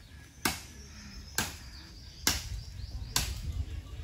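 A hand blade chopping into wood at the base of a bamboo clump: four sharp strikes, evenly spaced about a second apart.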